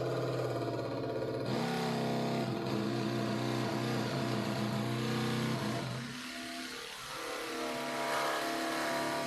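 Cordless jigsaw cutting through a plastic saddlebag lid, its motor running steadily. The motor's pitch shifts a few times as the load changes, with a short dip about six seconds in.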